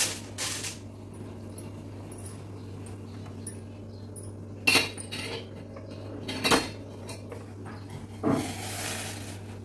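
Steel kitchenware knocking and clinking as a kettle of hot water is handled and lifted off a gas stove. There are a few sharp knocks spaced a couple of seconds apart, then a rushing noise lasting about a second near the end.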